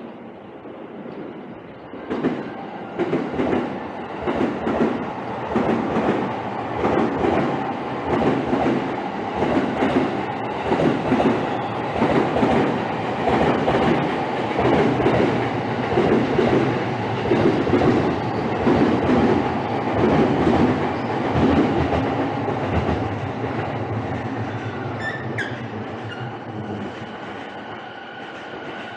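A passenger train passing close by, its wheels clacking in a steady rhythm over the rail joints. The rumble starts suddenly about two seconds in and fades slowly toward the end.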